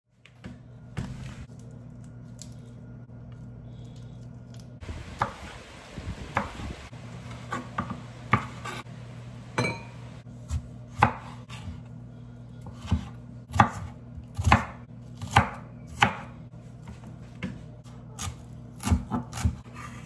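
Kitchen knife chopping raw shrimp and green pepper on a wooden cutting board: irregular sharp knocks of the blade on the board, with a steady low hum underneath.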